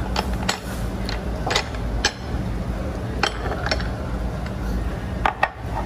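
Tableware and small bottles handled at a table during a meal: about ten scattered light clicks and clinks over a steady low hum.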